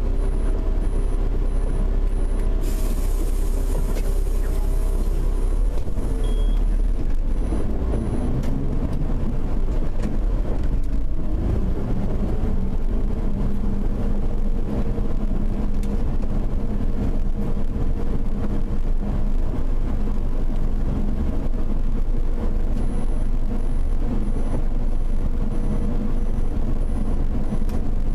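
Bus engine heard from inside the bus, idling at first. A hiss of compressed air about three seconds in lasts a few seconds. Around eleven seconds in the engine note rises as the bus pulls away, then runs steadily while under way.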